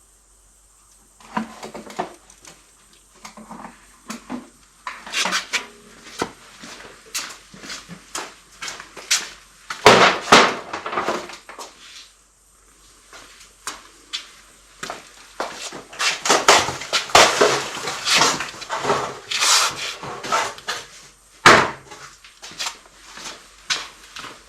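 Handling noises: irregular clicks, knocks and rustles, with a sharper knock about ten seconds in and another near the end.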